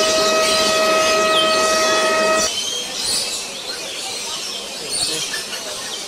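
The bird park's passenger train running with a steady pitched hum, which stops abruptly about two and a half seconds in along with its rumble. Small birds keep up a chirping at the nest colony.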